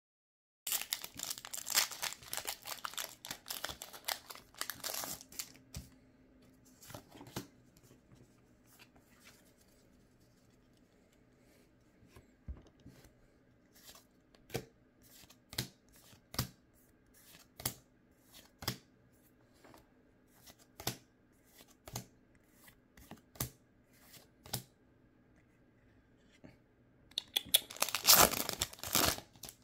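Foil Pokémon booster pack wrapper crinkling for a few seconds. Then trading cards are flipped one at a time with a light tap about once a second, and near the end another foil booster pack is crinkled and torn open.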